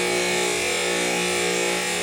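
Decent Espresso machine running a slow profile with no portafilter fitted: a steady pump hum over the hiss of water streaming from the open group head.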